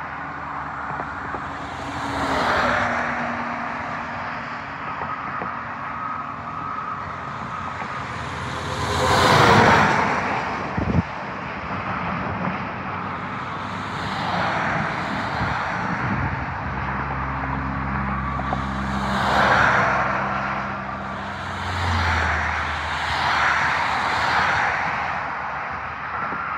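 Highway traffic: cars and trucks pass one after another, each swelling and fading, the loudest about nine and a half seconds in, with a short knock just after it. In the second half a low engine runs steadily underneath.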